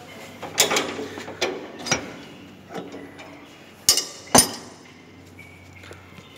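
Stainless steel bowl and frame of an Electra 100 melangeur clanking and clicking as it is handled and fitted: a few scattered metal knocks, the two loudest close together about four seconds in.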